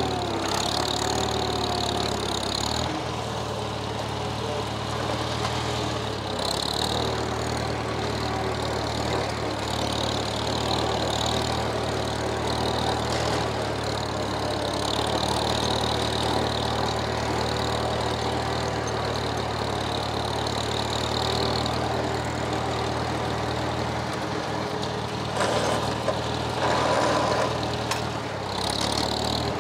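Antique tractor engine running steadily under work. Its note shifts about three seconds in, and the steady low engine hum drops away about six seconds before the end.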